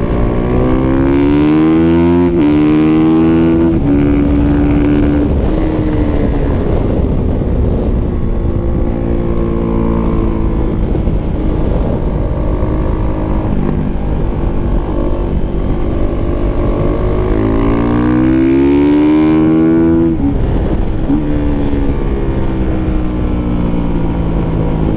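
Kawasaki KX450F single-cylinder four-stroke dirt bike engine heard from on board at track speed, with wind rushing over the microphone. The engine note climbs as it accelerates and drops at an upshift about two seconds in, holds steady, then climbs again and shifts up near twenty seconds.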